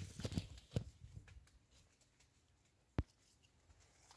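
Persimmon tree leaves rustling and crackling close to the microphone for the first second and a half, then dying away, with one sharp click about three seconds in.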